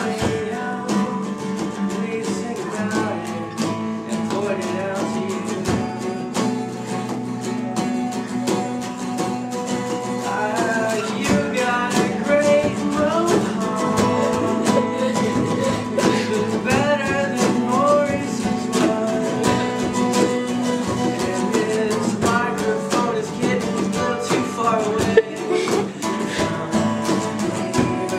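A man singing an improvised song over a strummed acoustic guitar, with the voice coming and going over the steady chords.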